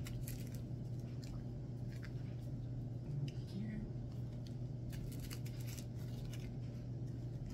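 Small clear plastic zip-top bags of diamond-painting drills being handled, crinkling and rustling in a string of short, irregular crackles.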